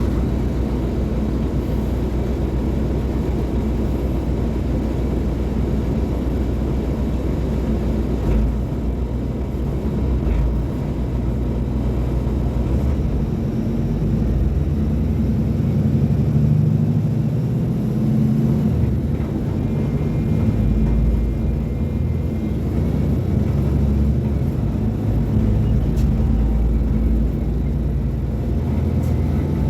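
Mercedes-Benz O500U city bus's BlueTec 5 diesel engine running under way, its low drone rising and falling in pitch as the bus speeds up and slows down.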